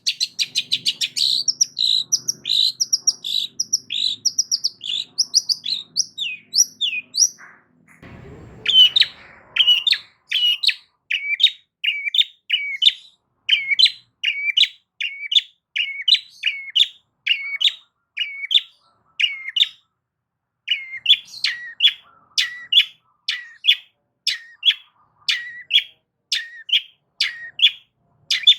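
Long-tailed shrike (cendet) singing loudly: a fast chattering run of notes, then, after a short noisy burst about eight seconds in, a long series of repeated sharp downslurred calls at about two a second, broken once by a brief pause.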